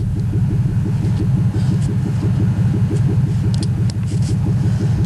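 A steady low engine rumble with an even pulse of about seven beats a second, like a motor idling, with a few faint high ticks over it.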